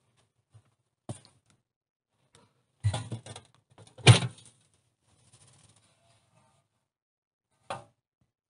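The door of a bucket stove being handled and opened, making a few sharp knocks and clanks. There is a single knock, then a cluster of them, and the loudest comes just after four seconds in. One more knock follows near the end.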